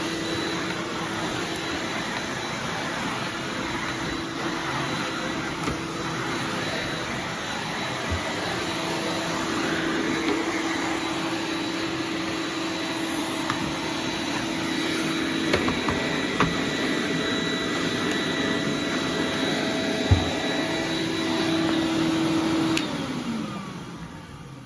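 Numatic NVR260 vacuum cleaner running steadily with a constant hum and a few knocks. Near the end it is switched off and the motor winds down, its pitch falling.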